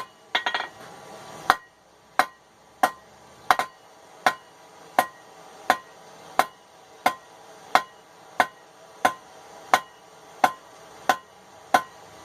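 Blacksmith's hammer striking hot steel on an anvil with steady, evenly spaced ringing blows, about three every two seconds, while drawing out a tong blank. A quick cluster of lighter taps comes just after the start.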